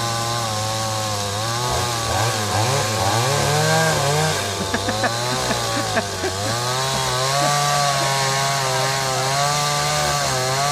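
Two-stroke chainsaws running and cutting into a large tree trunk, the engine pitch dipping and recovering as the chain bites. About halfway through there are a few short clicks.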